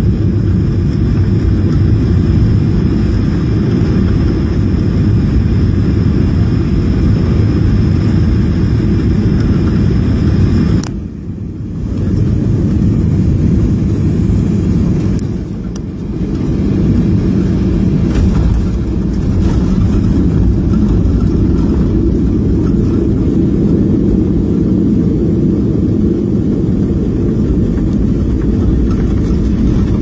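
Passenger-cabin noise of a Boeing 737 landing: a steady deep rumble of engines and airflow on final approach, with a faint high whine. About eleven seconds in the sound drops sharply and briefly, and after a second short dip the steady rumble continues as the jet rolls out on the runway.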